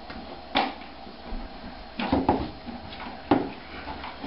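A few sharp knocks and clatters over a faint steady background: one about half a second in, a quick cluster about two seconds in, and one more a little past three seconds.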